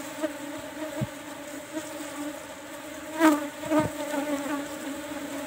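Asian honey bee (Apis cerana) colony buzzing in a steady hum from the open hive, with a louder swell about three seconds in and a few soft knocks.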